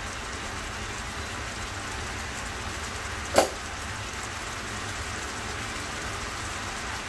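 Salmon steaks sizzling steadily in an oiled frying pan, with a single sharp knock about three and a half seconds in.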